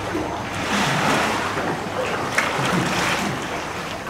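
Paddle strokes splashing and water sloshing around inflatable canoes inside a limestone sea cave, with a few sharper splashes.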